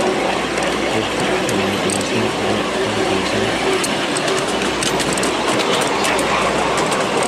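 Miniature railway train running along the track with a steady rolling noise from the wheels on the rails and scattered light clicks from the track, over a faint steady hum.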